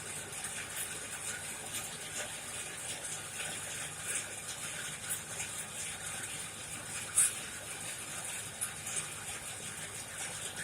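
Coal forge fire burning: a steady rushing hiss with scattered crackles and pops from the coal, one sharper pop about seven seconds in.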